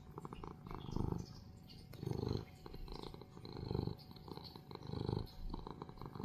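Domestic cat purring close up: a fast, fine rumble that swells and eases with each breath, about every second and a half.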